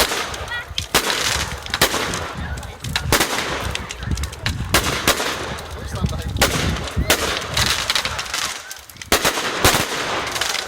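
Fireworks going off: a dozen or so sharp bangs and crackles in quick, irregular succession over a steady low rumble.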